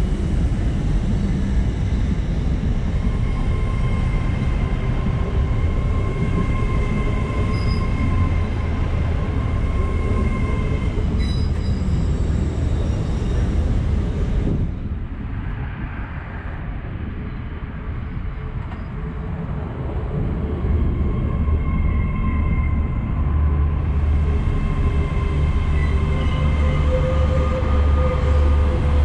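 GWR Class 800 train (800 316) moving along the platform close by, a continuous rumble with steady hum tones. It goes briefly quieter about halfway through, then a heavier low rumble builds toward the end.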